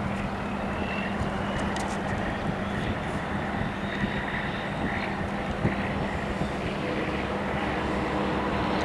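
EMD GP9 switch locomotive's diesel engine running with a steady drone as it moves a cut of covered hopper cars, growing a little louder near the end.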